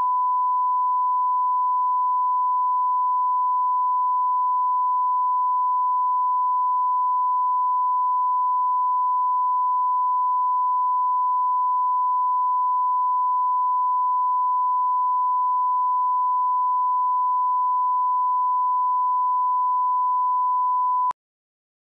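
Broadcast line-up reference tone: a steady 1 kHz test tone accompanying colour bars, cutting off suddenly about a second before the end.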